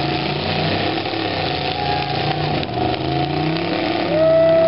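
Several demolition-derby pickup truck engines running and revving, their pitch rising and falling. About four seconds in, one engine revs loudly with a high note that slowly sags.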